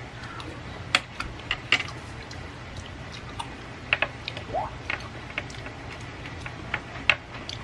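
Close-up eating sounds from a person chewing soft steamed egg: irregular soft clicks and smacks from the mouth and from wooden chopsticks against a plate. A steady low hum runs underneath.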